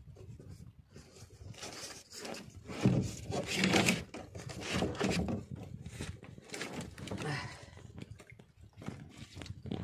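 Handling noises on a small wooden outrigger boat: irregular knocks, thumps and rustling as a fisherman moves about the deck, loudest from about three to four seconds in.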